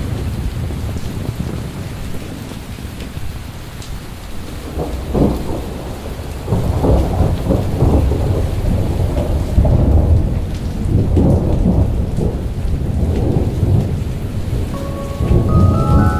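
Thunderstorm sound effect: deep rolling thunder over steady rain, the rumble growing heavier about six seconds in. Near the end a chiming musical tone comes in.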